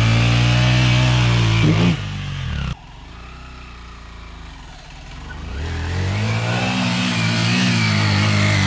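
Minsk X250 dirt bike's single-cylinder engine held at high revs while the rear wheel spins in loose sand. About two and a half seconds in it cuts to the bike's engine faint in the distance, which grows steadily louder as the bike climbs toward the listener.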